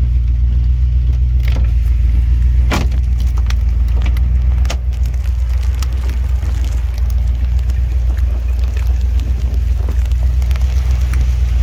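Steady low rumble inside a vehicle's cabin, with a few sharp knocks in the first five seconds and scattered lighter ticks of hailstones striking the vehicle as the hail thins out.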